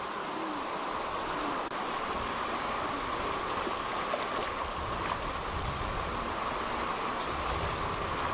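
Steady rushing of running water, like a stream, with a low rumble joining in about two seconds in.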